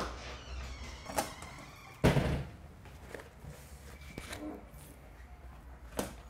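A door shutting with a loud knock about two seconds in, then slow, single footsteps on a hard hallway floor.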